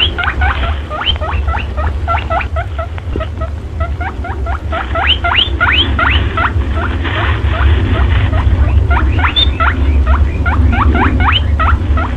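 Rapid runs of short, high squeaks, each sweeping sharply up in pitch, several a second, over a steady low rumble. The recording is sold as a perentie calling sound, a lure to draw in monitor lizards.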